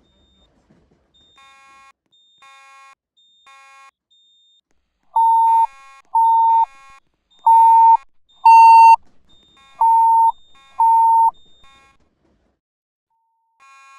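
Fire alarm system beeping between voice evacuation messages during an alarm test. First come three fainter beeps about a second apart. Then, about five seconds in, six loud steady tones of about half a second each, roughly a second apart.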